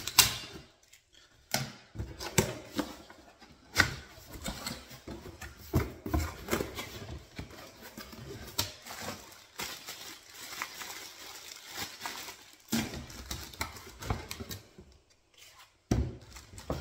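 A cardboard box being opened and unpacked by hand: flaps and packaging rustling, with irregular knocks and clicks as the plastic parts of an electric paint sprayer are lifted out and handled.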